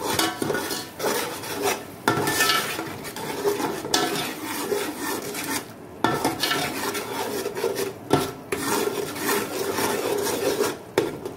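Long slotted metal spoon stirring and scraping a thick tomato and spice masala around an aluminium pot, in repeated strokes with short breaks about every two seconds.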